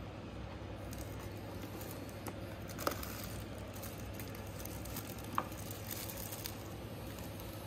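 Clear plastic bag rustling and crinkling as a wrapped vinyl figure is handled and lifted out of its box, with two sharper crackles about three seconds in and again about five seconds in.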